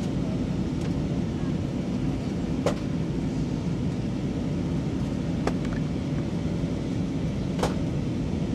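Steady low rumble of cabin noise inside an Airbus A320 on descent: engine and airflow noise from its IAE V2500 engines, heard from a seat behind the wing. Three short clicks cut through it, about three, five and a half and seven and a half seconds in.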